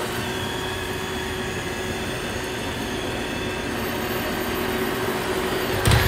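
Roomba robot vacuum running on carpet, its vacuum and brush motors giving a steady whir with a faint hum. A short knock comes near the end.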